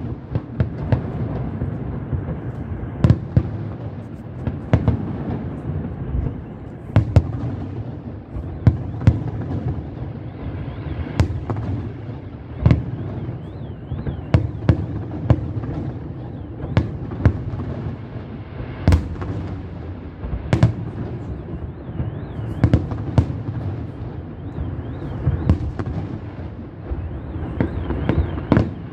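Aerial firework shells bursting in a steady barrage: sharp bangs about once or twice a second over a continuous low rumble.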